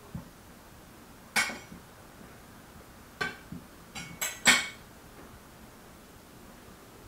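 Serving platters set down on a laid table, clinking against the plates and dishes around them: about half a dozen sharp clinks with a short ring, spread over a few seconds, the loudest near the middle.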